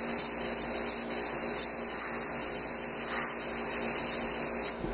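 Airbrush spraying paint at low pressure: a steady high hiss of air that cuts off near the end.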